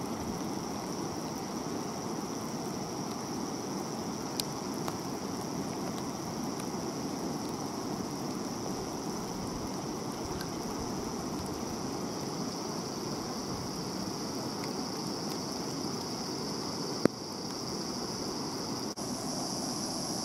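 Steady rushing outdoor noise with a constant high-pitched drone above it, and a single sharp click about seventeen seconds in.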